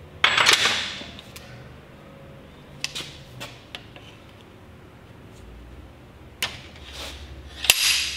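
Hammer blows on a screwdriver used as a punch against a corrosion-stuck woodruff key on a Yamaha 40 hp outboard driveshaft, the steel ringing after each strike. There are two heavy blows, one just after the start and one near the end, with a few lighter metal taps between them. The key does not budge.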